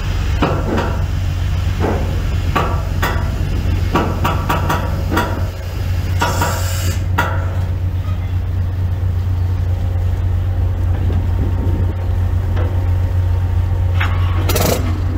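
A ship's boat lift hoisting a speedboat over the side: a steady low machinery drone with scattered clanks and knocks. There is a short noisy rush about six seconds in and another near the end.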